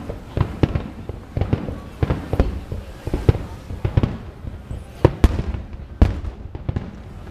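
Japanese Nagaoka aerial firework shells bursting in quick, irregular succession, a string of sharp bangs with the two loudest about five and six seconds in.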